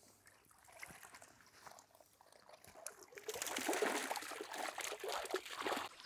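Water pouring and trickling off a mesh keepnet as it is lifted and handled in a lake, with faint drips at first and a steady run of pouring water from about three seconds in.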